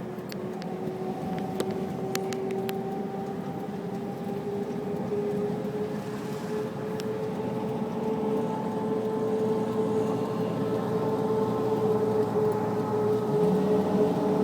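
Vehicle engine and road noise running as a steady hum, slowly rising in pitch and getting louder, with a few light clicks about two seconds in.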